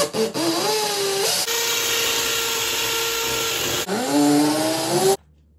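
Cordless drill running: its motor whine rises as it spins up, holds steady through the middle, then rises again before cutting off suddenly near the end.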